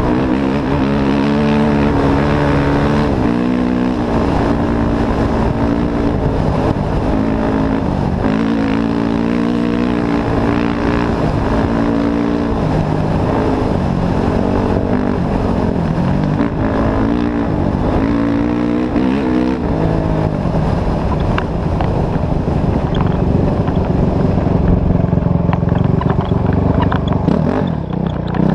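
Off-road race vehicle's engine running under way, its pitch repeatedly climbing and dropping every second or two as it accelerates and eases off, then holding steadier near the end.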